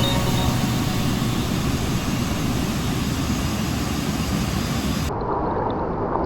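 Waterfall water rushing: a steady, even noise that turns duller about five seconds in.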